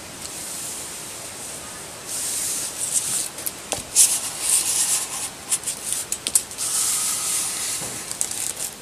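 Paper rustling and rubbing as hands slide and smooth sheets against each other, in uneven swells from about two seconds in, with small clicks and scrapes from a metal ruler laid on the paper.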